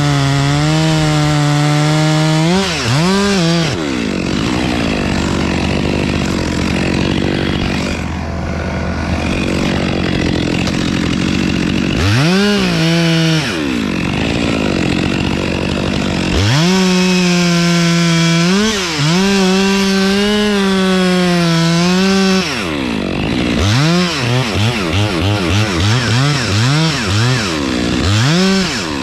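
Two-stroke chainsaw cutting wood, its throttle opened and released again and again. It holds full throttle for several seconds in the middle and ends with a run of quick throttle blips.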